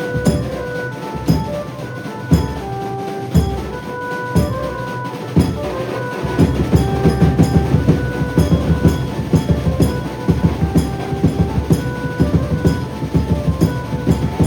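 Maharashtrian banjo band playing loudly: a held melody line on the band's banjo over drums. Heavy drum strokes fall about once a second at first, then break into fast, dense drumming about six seconds in.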